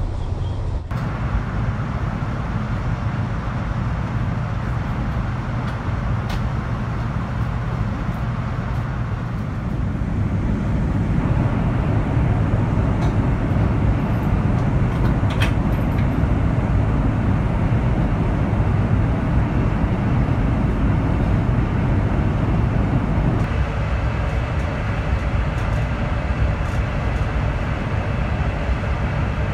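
Steady rumble and rush of a high-speed train heard from inside the passenger cabin while running at speed. It grows louder about a third of the way through.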